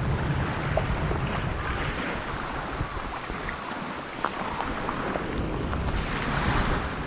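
Wind buffeting the microphone: a steady rushing noise with an uneven low rumble that eases a little toward the middle.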